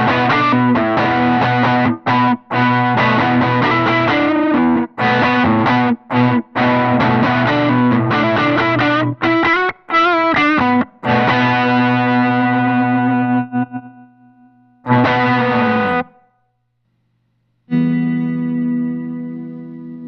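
Distorted electric guitar played through a BYOC Lazy Sprocket envelope volume-swell pedal, a Boss SG-1 Slow Gear clone. Chords come in repeated bursts with short gaps, then a chord rings out and fades. After a brief silence about three-quarters of the way through, one last chord rings and dies away.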